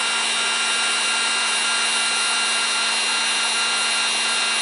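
Heat gun running steadily, blowing hot air to shrink adhesive-lined heat-shrink tubing over a crimped wire splice.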